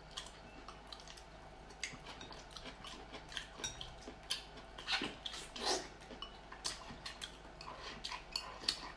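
Close-up eating sounds: chopsticks clicking and scraping against ceramic plates and a glass rice bowl, with chewing and mouth sounds. The clicks come many times throughout, and a louder, longer eating sound comes about five to six seconds in.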